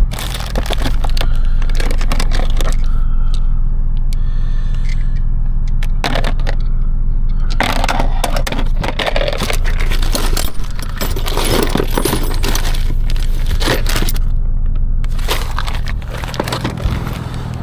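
Loose steel lug nuts and hand tools clinking and scraping, metal on metal, in irregular clicks. Under them a vehicle's engine idles with a steady low hum.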